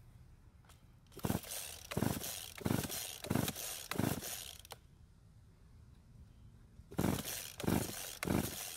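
Recoil starter of a McCulloch Mac 3200 two-stroke chainsaw being pulled over and over, each pull a short whir. There are five quick pulls, a pause of about three seconds, then another run of pulls. The engine never fires: its purge bulb has broken, so no fuel is reaching the carburettor.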